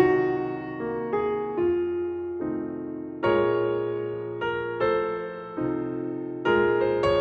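Background piano music: notes and chords struck about once or twice a second, each ringing and fading.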